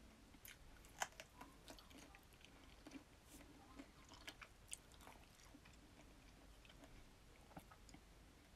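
Near silence with scattered faint clicks and taps of thin metal-framed sunglasses being handled and turned in the hands, the sharpest about a second in.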